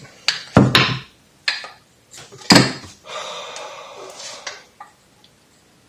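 Four knocks of a rubber mallet on a bar levering at the lip of a motorcycle fork seal, then about a second and a half of metal scraping and rattling as the tool shifts, with a couple of light clicks after.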